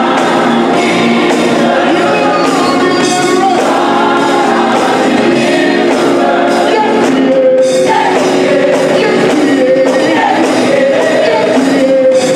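Gospel choir singing in harmony, with a live band of electric bass guitar, drum kit and organ keeping a steady beat.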